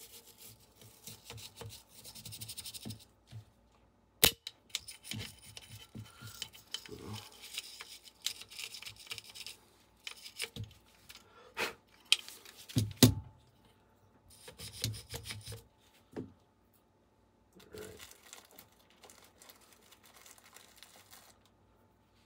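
Wire brush scrubbing the metal of an AR-15 lower receiver in bursts to clear out carbon, broken by a few sharp metallic clicks and knocks as the parts are handled; the loudest knock comes about two-thirds through.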